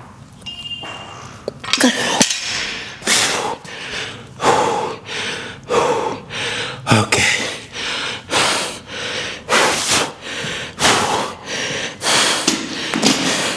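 A person breathing hard and fast: loud, rough breaths in and out about once a second, as they catch their breath after a hard set of lifting.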